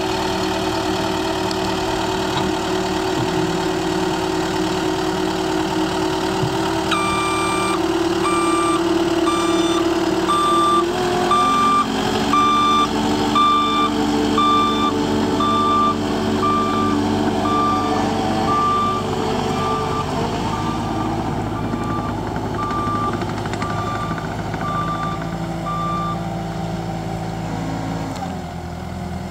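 Caterpillar 259D compact track loader's diesel engine running, its note shifting about a third of the way in and dropping near the end. From about a quarter of the way in until near the end, a reversing alarm beeps steadily, a little more than once a second.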